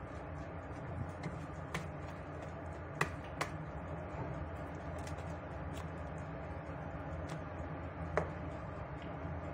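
Wire whisk beating chocolate cake batter in a plastic bowl, with a few sharp clicks of the whisk knocking the bowl, the loudest near the end, over a steady low hum.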